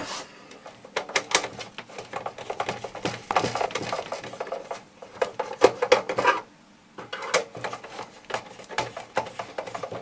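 A hand screwdriver working small screws out of a hard plastic casing: irregular clicks, ticks and scrapes of the tool and fingers on the plastic grille, with a couple of short pauses.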